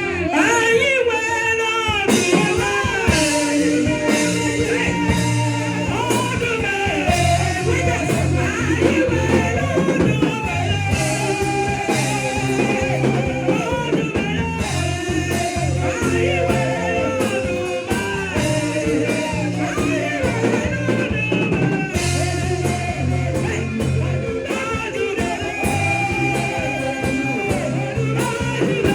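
Music with singing over a band with guitar, bass and drums, keeping a steady beat.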